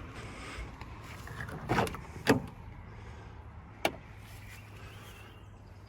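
Passenger door of a Toyota HiLux Surf being opened: a couple of soft knocks, then a sharp latch clunk about two seconds in, and a single short click near four seconds.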